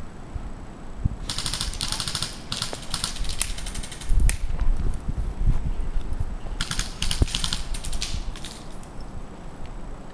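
Airsoft electric gun firing full-auto: three bursts of rapid, evenly spaced clicking shots, about a second each, with a low rumble on the microphone around the middle.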